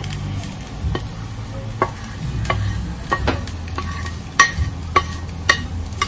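Fish cake frying in a nonstick pan with a steady sizzle, over a low hum. About ten sharp clinks that ring briefly sound through it and come closer together after the middle.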